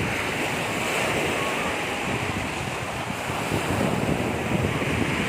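Sea waves washing onto a beach, a steady surf hiss, with wind buffeting the microphone.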